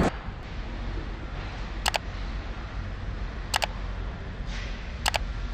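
A steady low factory hum with three sharp double clicks, evenly spaced about a second and a half apart.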